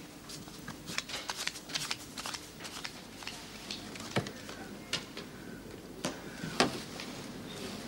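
Scattered light clicks and taps in a small room, with two sharper knocks about four and six and a half seconds in: the handling of a leaded casement window as it is unlatched and pushed open.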